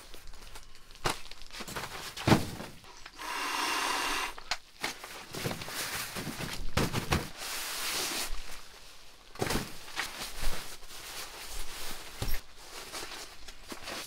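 Gear being handled in a fabric shelter: nylon rustling and scattered knocks and thuds as socks are hung from the roof poles and a sleeping pad and sleeping bag are laid out on a cot. About three seconds in there is a second-long stretch of steady rustling.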